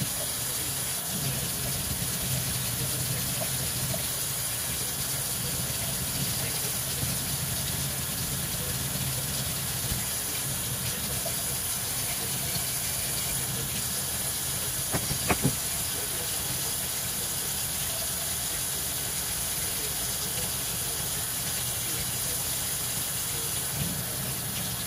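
Kitchen faucet running a steady stream into a sink while small metal hand-plane parts are rinsed under it by hand. A short cluster of sharp clicks sounds a little past halfway.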